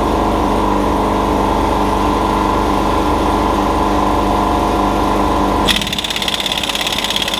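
Impact wrench running steadily, then about six seconds in it switches abruptly to rapid hammering, working on the RV's front-end bolts.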